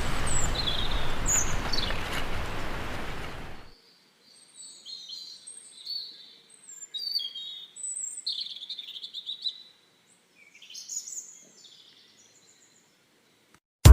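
Small birds chirping in short, high calls, at first over a steady rushing noise that cuts off abruptly a little under four seconds in, then on their own against a quiet background until they fade near the end.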